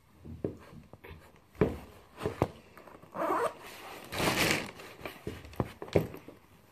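A zip pulled in two rasping strokes, the longer and louder one about four seconds in, amid handling knocks and rustling.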